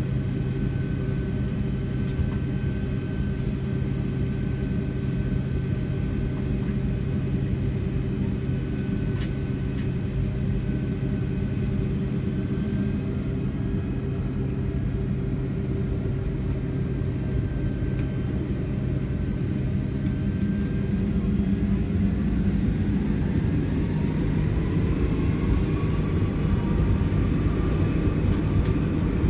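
Boeing 757-300 cabin noise on the ground: a steady engine hum and rumble. In the last third a whine rises in pitch and the overall sound grows a little louder as the engines spool up to taxi.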